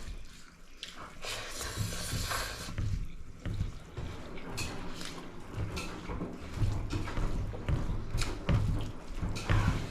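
Wet eating sounds from a meal of rice and dal: scattered small clicks and squelches.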